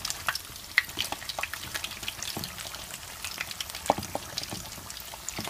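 Corned beef fritters frying in hot vegetable oil: a steady sizzle scattered with many small crackles and pops.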